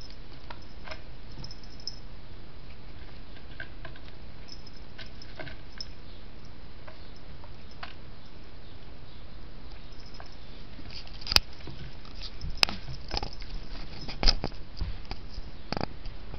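A kitten playing at a sisal-rope scratching post: light taps and scrapes of its paws and claws on the hardwood floor and the rope, over a steady hiss. A few sharper clicks and knocks come in the second half.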